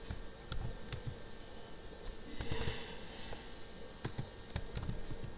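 A few irregular computer keyboard keystrokes, with a quick run of several key clicks about two and a half seconds in.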